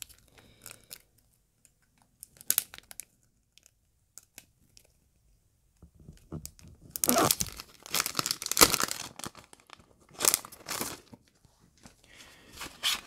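Clear plastic packaging of craft die sets crinkling and rustling as it is handled and opened. A few soft clicks at first, then loud bursts of crinkling from about seven seconds in.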